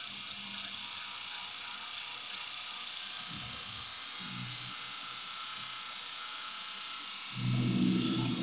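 Bathroom tap running, a steady hiss of water. About seven seconds in, a louder low buzzing hum joins it.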